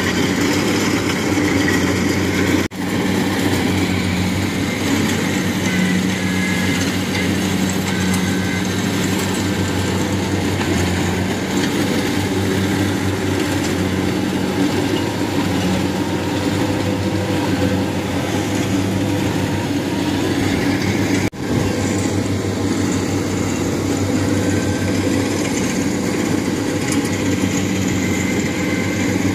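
Kubota 70 Plus rice combine harvester running steadily while cutting rice in a flooded paddy, a constant diesel engine drone. The sound drops out very briefly twice, about 3 seconds and 21 seconds in.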